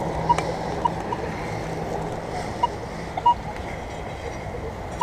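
Minelab X-Terra Pro metal detector giving short, irregular beeps as the coil is swept over ground, over a steady rushing background.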